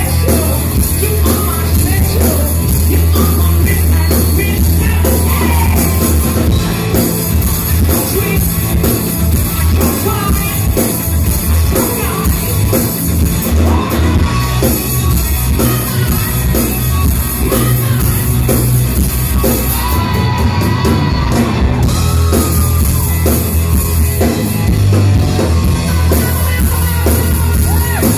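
Live rock band playing loudly, with a regular drum beat, heavy bass and a singer's voice, heard from within the crowd through a phone's microphone.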